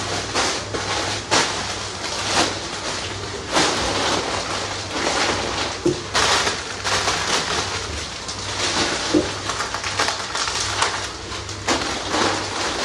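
Plastic packaging rustling and crinkling in irregular swishes as items are handled and packed, over a low steady hum.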